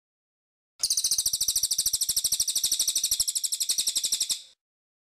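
Crested jayshrike (cililin) giving one long, dry rattling call, a rapid run of about a dozen high, harsh pulses a second, lasting about three and a half seconds.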